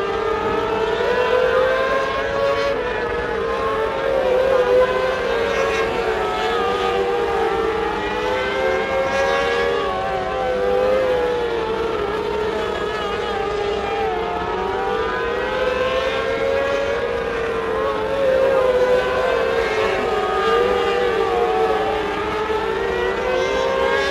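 Mini sprint race cars running laps on a dirt oval, their engines a high-pitched whine that rises and falls as they accelerate down the straights and back off for the turns. It swells louder each time the pack passes close.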